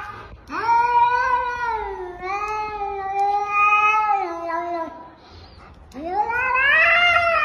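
A cat yowling in a warning standoff: two long, drawn-out caterwauls. The first lasts about four seconds, and the second starts about six seconds in, rising and then falling in pitch.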